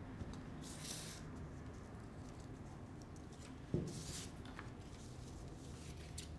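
Quiet handling of craft materials on a tabletop: two brief rustles of paper shapes and pipe cleaners, and a single sharp tap a little before four seconds in as a plastic glue bottle is picked up.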